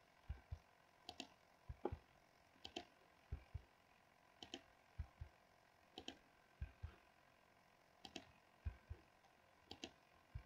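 Faint computer mouse clicks, mostly in quick pairs, repeating about every one and a half to two seconds, with soft low knocks between them.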